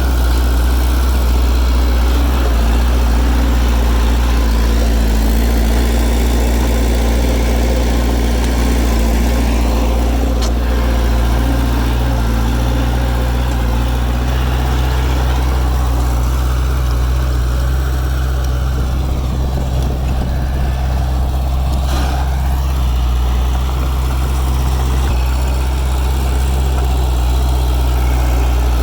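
Heavy diesel engine of earthmoving machinery running steadily, a continuous low drone.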